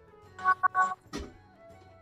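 Quiet background music: a few held plucked-string notes, with gaps of quiet between.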